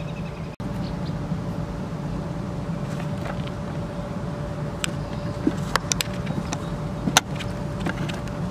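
Riding a bicycle: a steady low rumble with a faint steady hum, and a handful of sharp clicks and rattles about five to seven seconds in.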